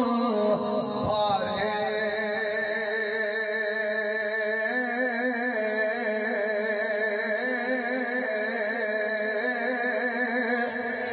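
A man's voice chanting Sufi kalam, holding long drawn-out melodic notes with a wavering pitch, with a steady hiss behind it.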